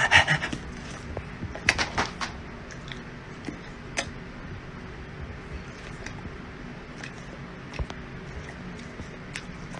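A few scattered clicks and knocks, clustered at the start and about two seconds in and then single ones every few seconds, over a steady low room hum.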